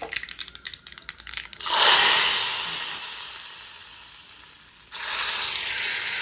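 Mustard seeds crackling in hot oil in a small iron tadka pan. About two seconds in, the hot tempering hits the cooked moong dal sambar and sizzles loudly, fading over a few seconds. A second sizzle starts about five seconds in as more of the pan's contents go in.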